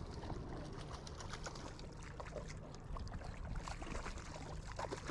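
Water splashing and crackling as a hooked bonito thrashes at the surface beside the boat, over a low steady hum.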